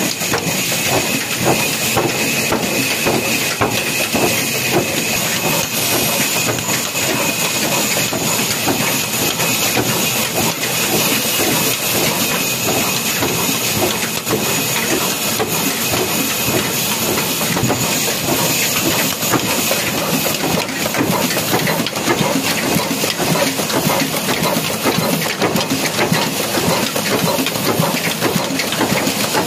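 Old black single-cylinder stationary diesel engine, a Ruston type, running steadily while belt-driving a wood-cutting band saw: a loud, even clatter and hiss with a faint steady high whine over it.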